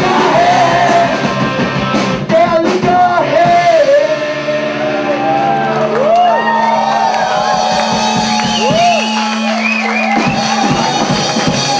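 A live choir and band performing with lively singing; about four seconds in, the low notes settle into a long held chord, while voices whoop and slide up and down in pitch over it.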